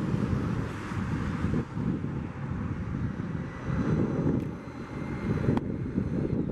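Boeing 777-300ER's GE90 jet engines running at high thrust as the airliner rolls along the runway: a steady low-pitched rumble with a faint high fan whine, heard over gusty wind on the microphone.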